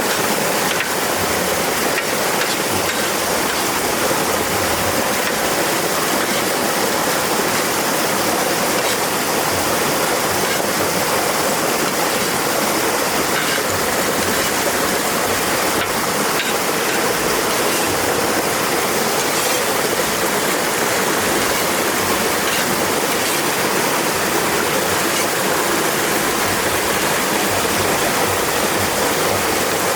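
A river flowing and rushing steadily, an unbroken wash of water noise.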